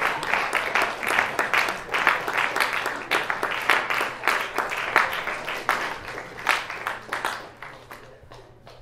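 Small audience applauding, many separate hand claps, dying away over the last second or two.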